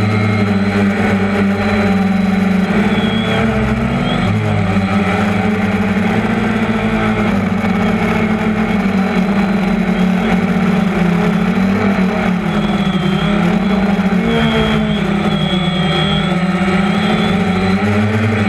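DJI Phantom quadcopter's four brushless motors and propellers humming loudly, heard through the GoPro mounted on its body. The pitch wavers a few times as the throttle changes while it manoeuvres.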